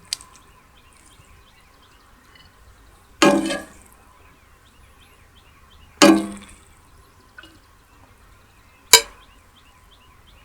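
A metal utensil striking the large cooking pan: a light tap, then three louder clangs about three seconds apart, each ringing briefly.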